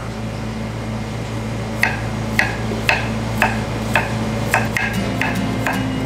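Chef's knife slicing garlic cloves on a wooden cutting board: the blade knocks on the board about twice a second, starting about two seconds in, over a steady low hum.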